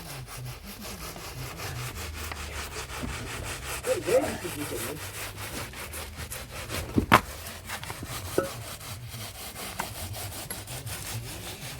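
A strip of plastic DPC membrane, pulled tight, being dragged in a back-and-forth sawing motion across freshly poured wet concrete to level and smooth the slab surface: a continuous rhythmic rasping scrape. A single sharp knock about seven seconds in is the loudest moment.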